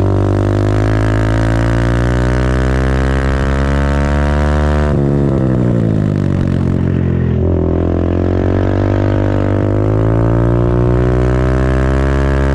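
Race minibike engine running hard on track, heard from a camera mounted on the bike. Revs climb for about five seconds, break sharply, fall away, then climb steadily again in the second half. The bike is geared so short that it commonly over-revs toward its 10,000 rpm redline without gaining speed.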